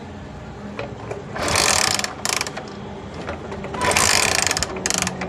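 Hero Honda Passion 100cc engine being kicked over with the kick-starter, two main ratcheting cranking bursts of about half a second each with shorter ones after; the engine is turned to check for current in a magneto wire.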